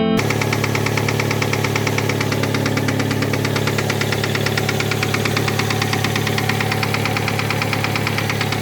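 2007 Hyundai Tucson's 2-litre four-cylinder engine idling with a steady, rapid knock from the top of the engine, which the owner puts down to the exhaust valve of cylinder one not seating fully in the cylinder head.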